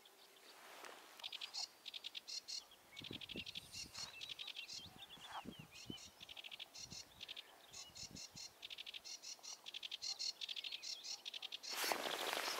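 Small birds singing in the reeds: short, rapid, high trills repeated over and over. A few low thumps come in the middle, and a loud rustle of handling close to the microphone comes near the end.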